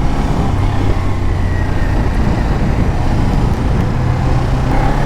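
Kawasaki Ninja 400's parallel-twin engine running steadily under way, heard from the rider's position, with a slight change in pitch near the end.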